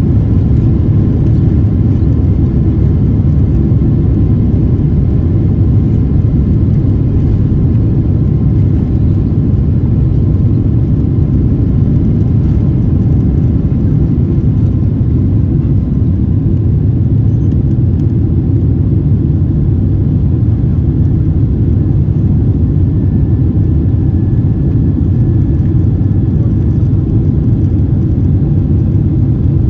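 Cabin sound of a Boeing 767-300ER's two General Electric CF6-80C2 turbofans at takeoff thrust, heard from a seat over the wing: a loud, steady rumble through the takeoff roll and lift-off into the climb.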